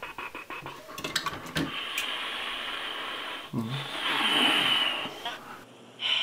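Helicopter rotor sound effect, chopping in a fast even rhythm for about the first second, followed by a few clicks and a long rushing hiss that is loudest around four to five seconds in.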